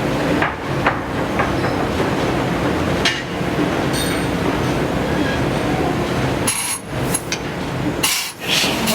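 Hydraulic forging hammer striking hot steel: heavy blows at uneven intervals over the steady hum of shop machinery.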